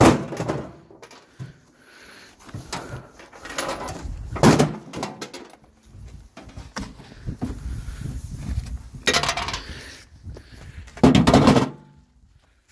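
Clattering knocks and rattles of a smashed microwave's bent metal casing and door being handled and pulled at, with several louder bangs, the loudest near the end.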